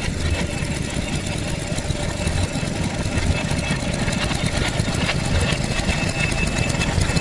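Vintage engine running steadily at idle.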